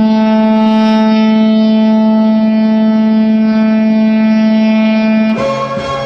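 Victoria Royals hockey goal horn sounding one long, steady, deep blast. About five seconds in it stops and the goal song's music starts.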